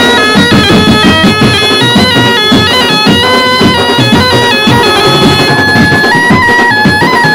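Background music: a wind-instrument melody of held notes stepping in pitch over a steady drumbeat.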